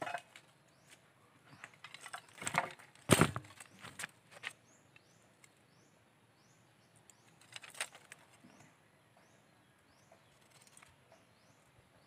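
Sharp light knocks and clatter of thin split-bamboo strips being handled on wooden planks, a few scattered strokes with one louder knock about three seconds in. Faint high chirps repeat about twice a second in the background.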